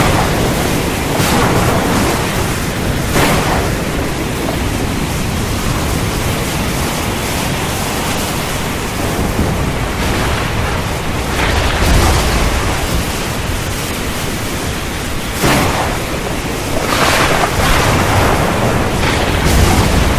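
Storm: a steady rush of heavy rain and wind, with several louder surges and a deep rumble of thunder about halfway through.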